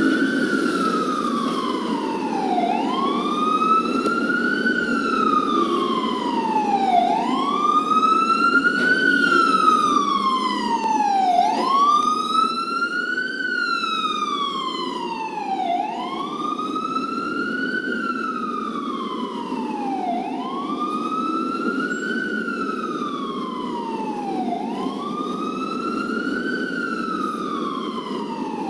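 Ambulance siren sounding a slow wail: the tone rises quickly, then falls more slowly, repeating about every four and a half seconds over a steady rumble.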